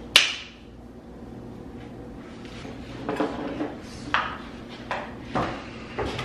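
Bottles and containers handled on a wooden counter: a sharp knock with a brief ring right at the start, then a run of lighter knocks and clacks from about three seconds in.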